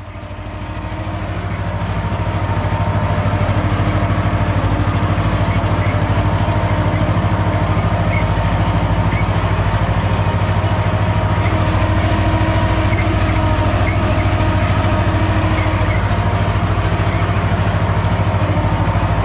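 Farm tractor's diesel engine running steadily as the tractor drives across a tilled field, heard close to the engine. It fades in over the first couple of seconds, then holds an even, rapid firing beat.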